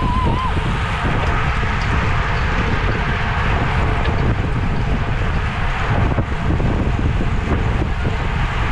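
Steady wind buffeting the microphone, a loud rushing noise with a heavy low rumble, as on a camera riding along in a bicycle race.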